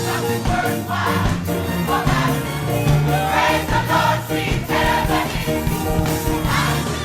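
Gospel choir singing with a band, a steady rhythmic beat under the voices.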